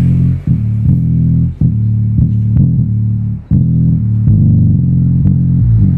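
Bass-heavy music played loud through a stack of ACR subwoofers in plywood cabinets under test: almost nothing but low bass notes, changing pitch every half second or so, with a few brief dips between phrases.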